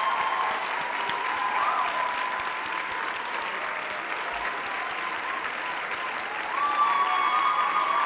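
A large auditorium audience applauding steadily, with a few long high-pitched calls held over the clapping. The applause eases a little midway and swells again near the end.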